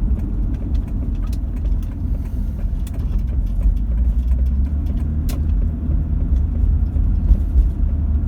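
A car driving, with a steady low rumble of road and engine noise and a short click about five seconds in.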